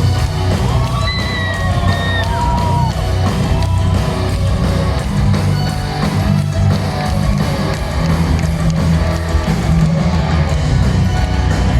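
Power-metal band playing loud: distorted guitars, heavy bass and drums, with a melodic lead line bending in pitch from about a second to three seconds in.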